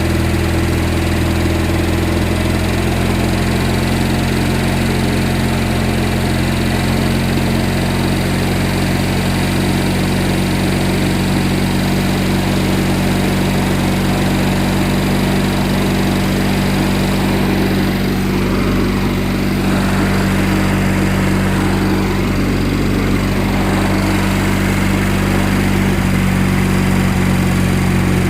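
Kohler Magnum 18 twin-cylinder engine on a Craftsman riding mower running steadily at an even speed. It runs smoothly on a newly fitted fuel pump.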